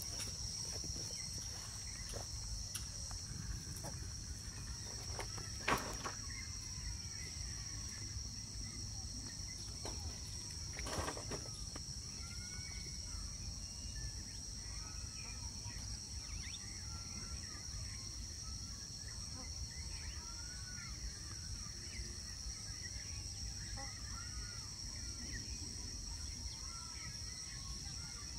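Steady high-pitched drone of an insect chorus, crickets, with scattered small bird chirps from about the middle on. A sharp knock comes about six seconds in, and a softer one a few seconds later.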